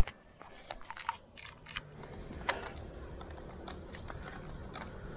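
Clicks and knocks of a camera being handled on a moving bicycle, then from about two seconds in a steady low rumble of the bike rolling along the path, with scattered light ticks and rattles.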